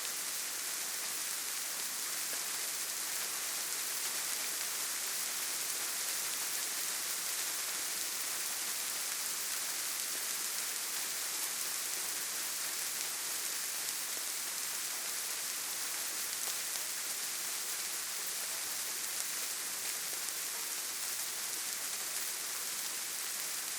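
Steady rain falling, a continuous even hiss of many drops with no single drops standing out.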